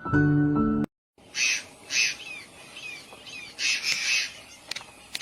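Music stops abruptly about a second in. Birds then call: a series of harsh, rasping squawks mixed with short falling chirps.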